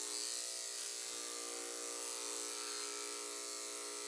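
Corded electric pet clippers running steadily with one even tone while clipping a puppy's coat.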